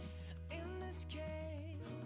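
Quiet background music with held bass notes and a melody over them.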